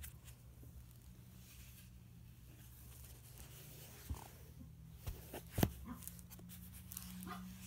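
Pages of a paper journal being turned and handled: faint paper rustles and a few soft knocks, the loudest about five and a half seconds in, over a low steady hum.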